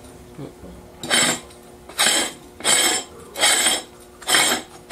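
Cast aluminium bell of a Nathan M-5 locomotive air horn being screwed onto the horn by hand: five rasping metal-on-metal scrapes of the threads, one every turn of the wrist, about one every 0.8 s, each with a slight ring.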